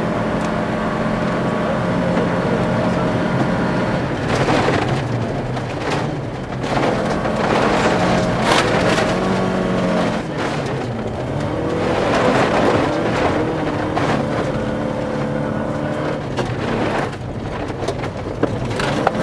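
Volvo 240 rally car's four-cylinder engine heard from inside the cabin, running hard on a gravel stage with its pitch climbing and dropping at gear changes and lifts. Gravel rattles and hisses against the underbody in several rushes.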